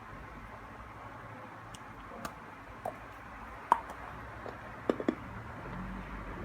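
Scattered light clicks and taps over a steady low hiss, the sharpest one about three and a half seconds in, with a quick pair near the end.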